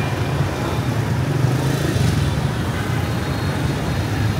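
Steady street traffic noise: a continuous low hum of passing vehicle engines.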